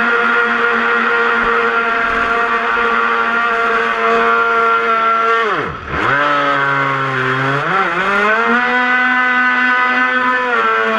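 Electric motor of a ProBoat Shockwave 26 RC speedboat whining at a steady pitch. About six seconds in the pitch drops sharply as the throttle is let off, then climbs back in steps and holds.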